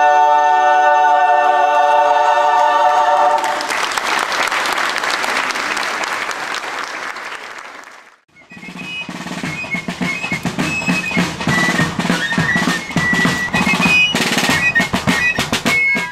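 An a cappella choir holds a final chord, and the audience applauds, fading away. After a break, a fife and drum corps plays: rapid snare drum strokes and bass drum under a high fife melody.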